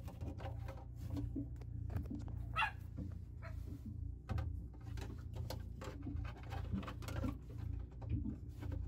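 A dog whining, with plastic clicks and knocks as a filter screen is fitted into a boat's shower sump, over a steady low hum.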